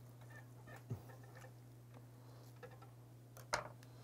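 Knife cutting through a boiled beef tongue on a wooden cutting board: faint soft clicks and a dull knock about a second in, then a sharper knock near the end as the knife is set down on the board.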